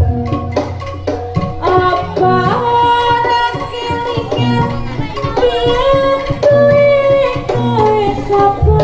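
Javanese jaranan ensemble playing live: hand-drum (kendang) strokes under a melody of held notes that glide from pitch to pitch. A deep low drone drops out about a second in and comes back near the end.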